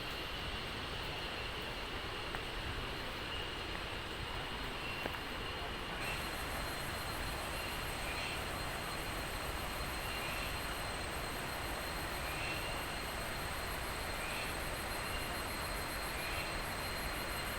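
Steady rushing noise, with insects trilling high and fast from about six seconds in.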